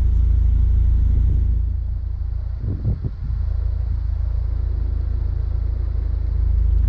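Low, steady rumble of a Mini Cooper S Roadster driving slowly in city traffic. It drops a little in level about two seconds in, with a short thump about three seconds in.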